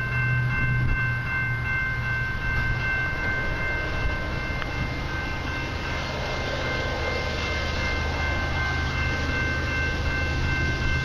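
Distant Canadian Pacific freight train led by diesel locomotives, approaching: a steady low rumble that grows a little fuller about halfway through. A few steady high-pitched tones run through it.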